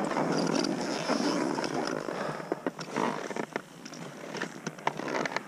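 Wind rushing and rumbling on the camera microphone for the first couple of seconds, then scattered sharp clicks and knocks of ski gear being handled on the snow.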